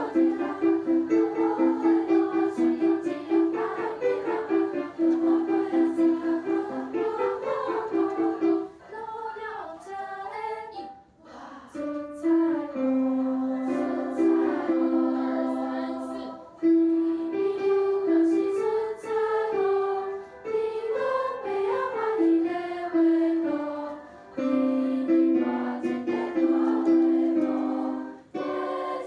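Music: the accompaniment track of a Taiwanese song, a melody in held, stepping notes over chords, thinning out briefly about nine to twelve seconds in.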